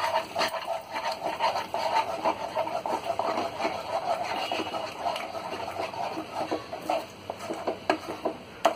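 Wooden spoon stirring and working a thick, sticky cornflour paste in a steel pan, a continuous run of quick, irregular wet strokes as yellow food colour is mixed through.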